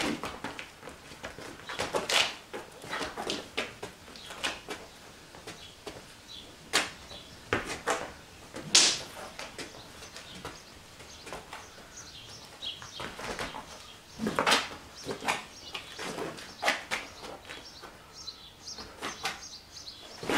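Sticks clacking and striking during live stick sparring: irregular sharp knocks, some in quick clusters, with the loudest at the very start, about nine seconds in and about fourteen seconds in.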